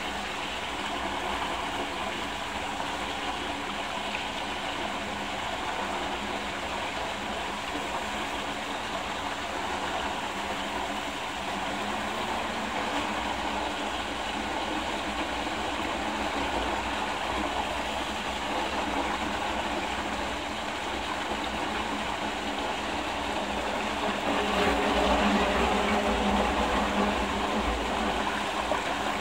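Water rushing and swirling steadily in a strong whirlpool vortex, with a faint low hum underneath; the rush grows louder a little before the end.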